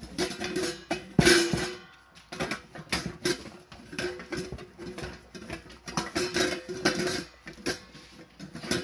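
Siberian husky puppies licking and lapping out stainless-steel food bowls, the metal bowls clinking and scraping in their stand in quick, irregular clicks, with a louder knock about a second in.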